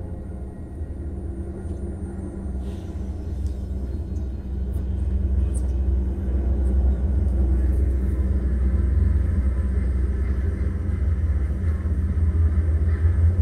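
Low, deep rumbling drone with a few steady tones held above it, swelling louder about a third of the way in and staying up.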